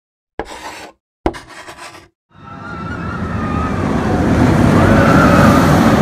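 Intro sound effects: two short sharp hits, then a rushing rumble that swells steadily louder over the next few seconds, like a vehicle approaching.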